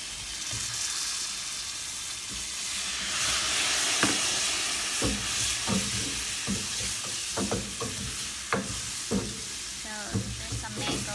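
Fish curry sizzling in a pot as chopped green mango goes in, the sizzle growing louder from about three to five seconds in. From about four seconds a wooden spoon stirs the pot, knocking against it irregularly.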